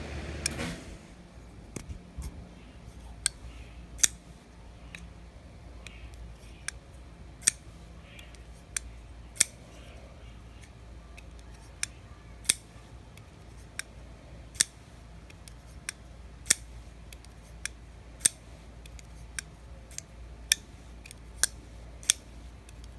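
Ray Laconico Jasmine folding knife being flipped open and shut over and over, each action a sharp metallic click, roughly one a second or faster.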